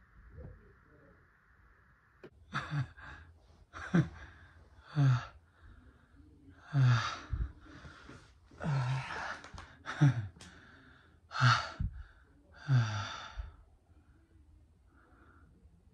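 A man moaning and sighing heavily, a string of about nine breathy moans roughly a second apart, each falling in pitch, in an exaggerated mock climax.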